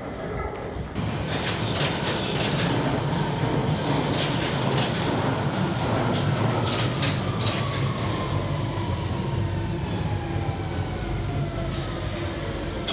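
London Underground Central line 1992 Stock train running into the platform and slowing to a stop. Loud rumble of wheels on rail with scattered clicks, and a falling whine as it brakes.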